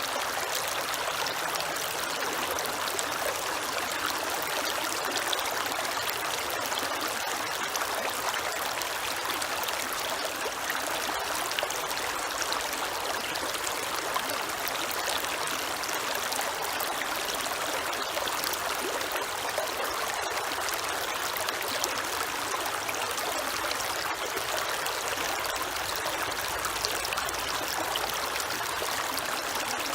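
Creek water running and trickling over stones, a steady even rush.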